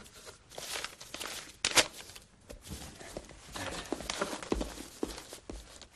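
A stack of papers rustling as it is gathered up and handled on a desk, with light knocks and a few footsteps.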